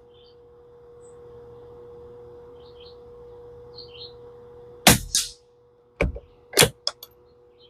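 Sharp clicks and clacks from a Tikka T1x .22 rimfire bolt-action rifle: one loud crack about five seconds in, then about four quick metallic clicks as the bolt is worked. Under them are a faint steady hum and a few faint chirps.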